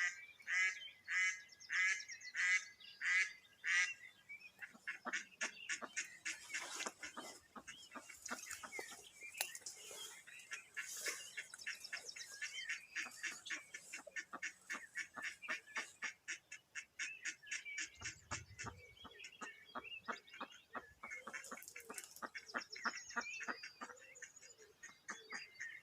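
Live decoy hen duck quacking: a run of about seven loud quacks over the first four seconds, then softer, quicker calling mixed with songbirds singing.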